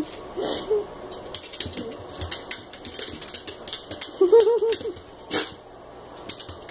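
A dog's claws clicking and scratching on a tile floor and against the bottom of a glass storm door, with a quick string of short, high yips about four seconds in and a single louder knock just after.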